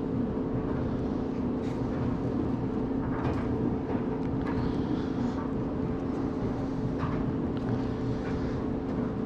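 A steady low mechanical hum, with a few faint clicks and rustles over it.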